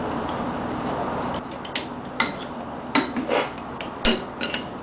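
Steel combination wrench clinking against nuts and threaded studs while nuts on an alternator hub are tightened: about six sharp, ringing metallic clinks in the second half, the loudest about four seconds in. A steady hiss drops away about a second and a half in.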